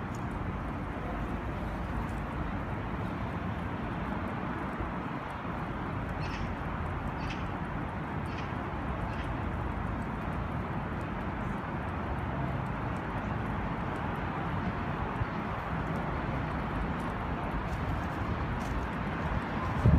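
Steady city street noise, mostly a low hum of distant traffic, with a few faint ticks about six to seven seconds in.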